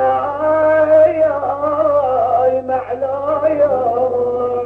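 A male reciter chanting a Husseini lament, drawing out a long wavering melismatic line that breaks off near the end, over a steady low hum from the old recording.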